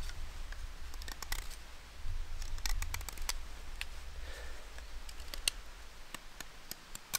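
Fieldmaster bushcraft knife whittling a wooden stick: a run of short, sharp cuts and scrapes as a notch is carved, over a low rumble.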